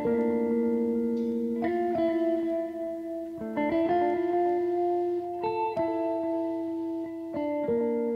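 Background music: a slow melody of plucked notes, each ringing on until the next.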